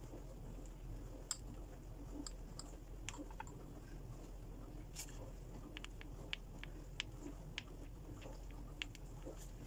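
Faint, irregular clicks and soft squishing as meringue is squeezed from a piping bag in short dabs.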